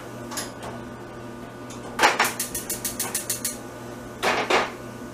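Gas stove's electric igniter clicking rapidly, about seven clicks a second for a second and a half, lighting the burner under a saucepan of potatoes. Two short, louder rasping sounds follow near the end.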